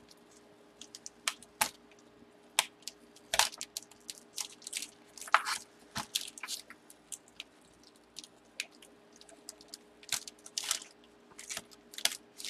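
Tape being picked at and peeled off a card's paper-and-plastic packaging by hand: irregular crackles, clicks and short tearing rasps.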